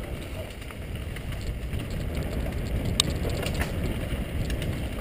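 Mountain bike riding fast down a dirt trail: a steady low rumble of tyres and bike over the rough ground, with scattered clicks and rattles from the bike and one sharp knock about three seconds in.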